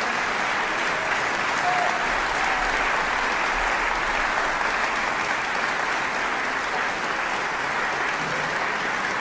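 Audience applauding: steady, even clapping from a full hall.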